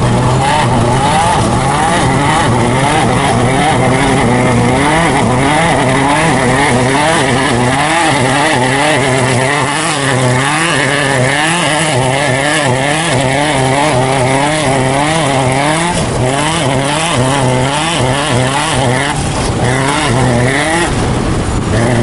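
Off-road race truck engine running hard, its revs swinging up and down quickly and unevenly, about twice a second at times, as the throttle and wheel speed change over rough ground. A steady low drone runs underneath.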